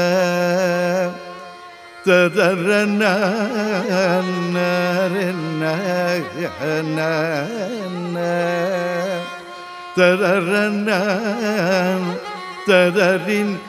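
Male voice singing Carnatic-style melodic syllables ('tadarannanna') with heavily ornamented, wavering pitch over a steady drone. It pauses briefly about a second in and again about nine seconds in.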